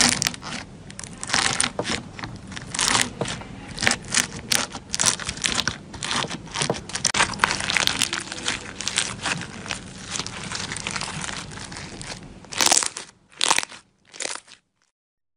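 Pink foam-bead slime being squeezed and kneaded by hand, the beads crunching and crackling in dense rapid clicks. Near the end come a few separate, louder crunches before the sound cuts off.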